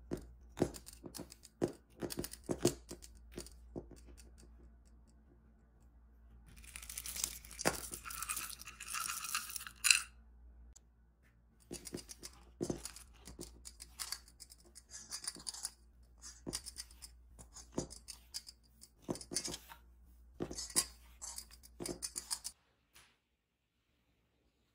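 Sticky brioche dough being punched down and worked by hand in a stainless steel bowl: irregular squelching, tearing sounds as the dough is pulled and pressed. About six seconds in, a dense rattling rush for some three seconds, cut off sharply, as chocolate chips are poured into the bowl.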